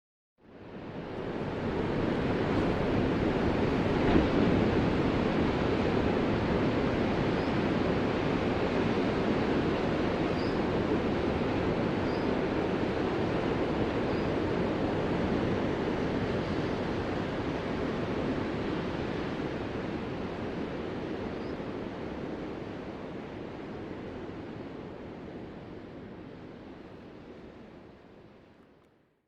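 Ocean surf: a steady, even rush of breaking waves with no single crash standing out. It fades in about a second in, eases off slowly over the second half, and fades out just before the end.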